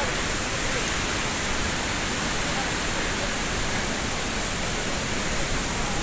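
Steady, even rush of falling water, with no breaks or changes.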